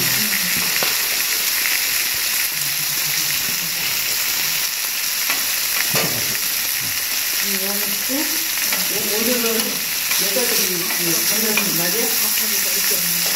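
Pork belly, enoki mushrooms and onion slices sizzling steadily on a large flat steel griddle, with a few clinks of metal tongs as the meat is turned. Voices murmur in the background in the second half.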